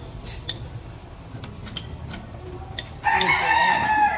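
A rooster crows once, loudly, about three seconds in, a single call of a little over a second that drops slightly in pitch at its end. Before it, a few faint clicks.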